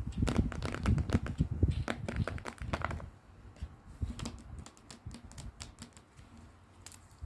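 Long fingernails clicking and tapping on tape-covered paper crafts, with paper and tape crinkling as they are handled. The clicks come thick and fast for about three seconds, then turn sparse.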